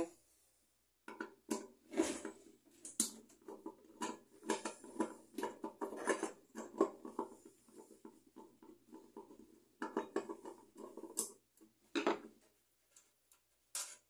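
Irregular small clicks, scrapes and rattles of a microwave oven's turntable motor and its small screws being handled and taken off the oven's sheet-metal base.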